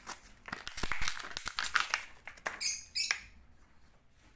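Plastic-and-cardboard blister pack being torn open by hand: dense crinkling and crackling that dies away about three seconds in.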